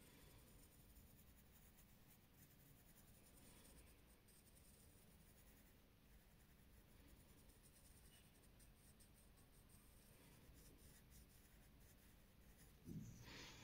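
Faint scratching of a pencil shading on drawing paper, with a brief louder sound near the end.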